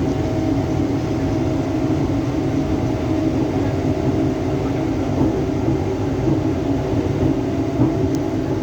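Mumbai suburban local electric train running steadily: an even rumble with a steady hum through it.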